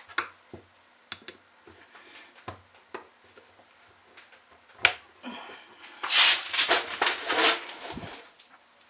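Small chainsaw carburetor parts clicking and tapping against each other and the workbench as they are handled. Then comes about two seconds of loud, uneven hissing.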